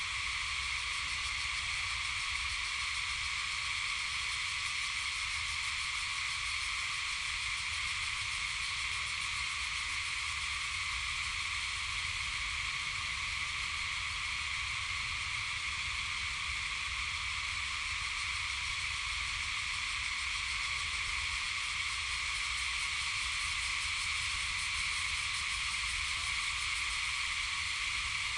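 Steady, unbroken insect chorus: a dense high drone that holds at an even level throughout, with a low rumble underneath.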